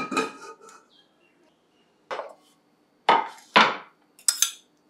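Kitchen utensils and cookware being handled on a counter. At the start an item lands with a brief metallic ring, and four more knocks follow over the next few seconds.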